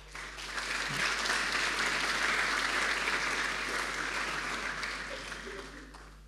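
Audience applauding, starting suddenly and dying away toward the end.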